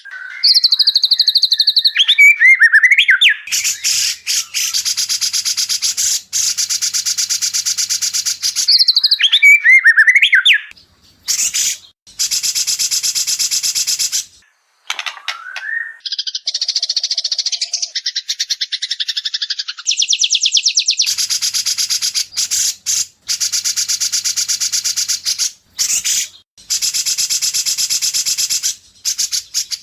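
White-rumped shama song: short whistled phrases that glide up and down, alternating with long runs of fast, harsh rattling notes, with brief pauses between runs.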